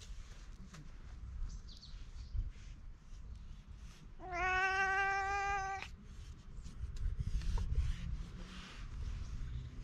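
Brown tabby-and-white stray cat giving one drawn-out meow, about a second and a half long and steady in pitch, about four seconds in.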